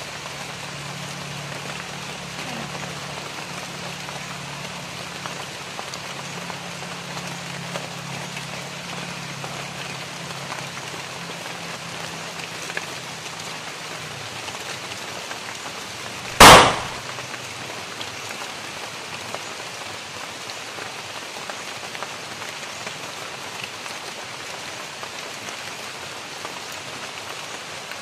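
Steady rain falling on forest foliage, with a single loud rifle shot about halfway through.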